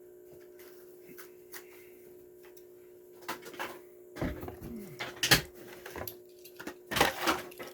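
Plastic blister packaging and cardboard of a toy car package crinkling and crackling as it is opened. The crackles come in sharp bursts from about three seconds in, over a steady hum.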